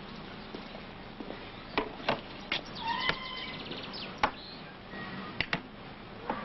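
Drinking glasses and bottles clinking as they are gathered off a table onto a tray: a handful of sharp glass clinks, with a short chirping trill about three seconds in.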